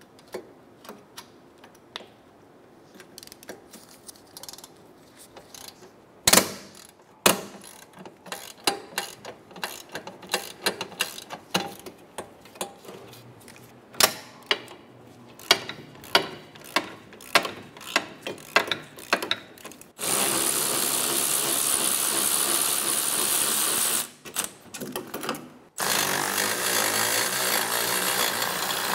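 Socket ratchet clicking in irregular strokes, with two sharp knocks about six and seven seconds in, as the 14 mm caliper bracket bolts are worked loose. Then a power tool runs steadily for about four seconds, stops briefly, and runs again to the end.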